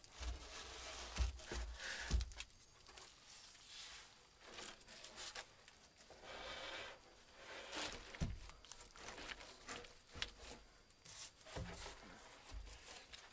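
Irregular rustling and crinkling from hands at work, broken by a few soft thumps.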